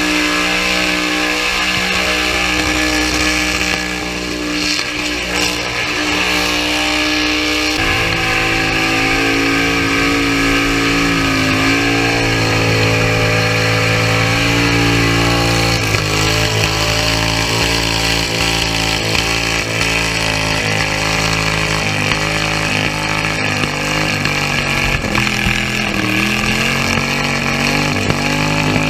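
Guitar-driven music mixed with a car engine running at high revs.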